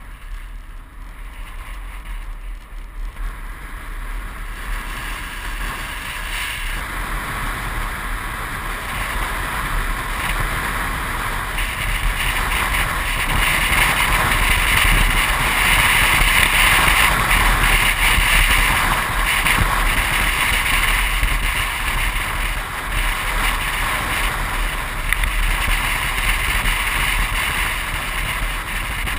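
Wind and road noise of a car driving on a paved road, a steady rushing hiss that grows louder over the first dozen seconds as the car picks up speed, then holds fairly steady.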